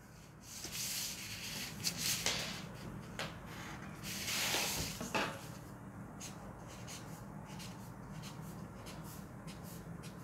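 Marker pen drawing on pattern paper, with the paper and a ruler rubbing and sliding on the table. The scratchy strokes are loudest around one, two and four and a half seconds in, followed by light ticks and taps. A faint steady hum lies underneath.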